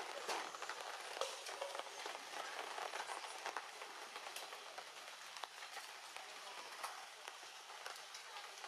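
Rain pattering: a steady hiss of falling drops with many small, sharp drips scattered through it.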